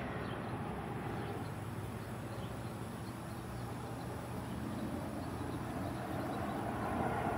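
Distant jet aircraft noise, a steady rumble that dips slightly in the middle and swells again near the end.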